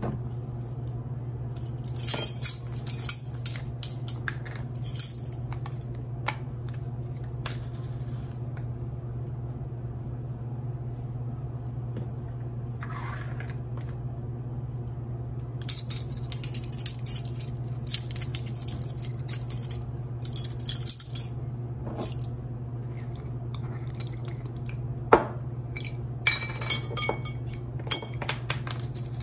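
Metal measuring spoons clinking and jangling against each other and against a ceramic bowl in several bursts of sharp clinks and rattles, as spices are scooped, tapped out and stirred. A steady low hum runs underneath.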